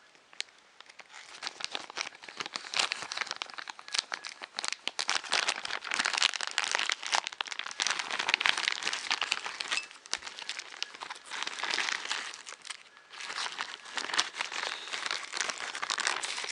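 Packaging being handled, with dense, irregular crinkling and crumpling that rises and falls and eases briefly twice.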